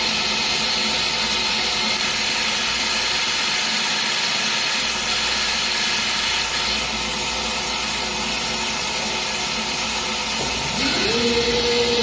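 Laser etching machine running with a steady airy hiss. Near the end a humming tone rises in pitch.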